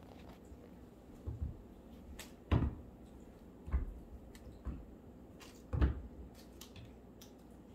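Kittens playing on a hardwood floor: a handful of soft thumps and scuffles roughly a second apart, loudest about two and a half and six seconds in.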